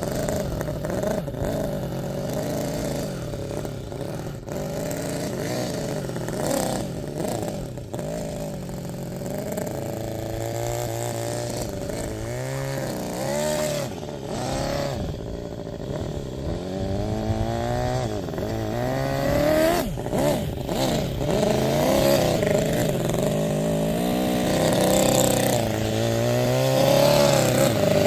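Toyan FS-L400BGC miniature water-cooled inline four-cylinder gasoline engine running in an RC 6x6 truck as it drives, its pitch rising and falling again and again as the throttle is opened and eased off.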